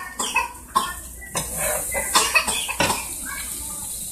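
A metal spoon clinking and scraping in a large pot of gumbo, mixed with short coughs.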